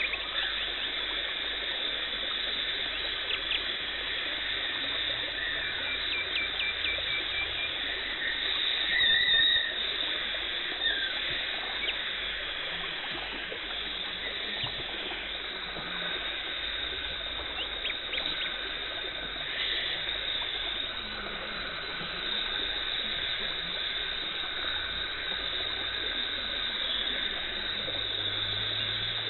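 Dental cleaning equipment working on teeth: a steady hiss of suction and water spray, broken by short squeaky chirps, gurgles and clicks, the loudest chirp about nine seconds in.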